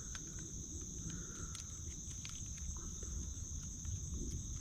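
Steady high-pitched insect chorus buzzing without a break, with scattered small clicks and a low rumble underneath.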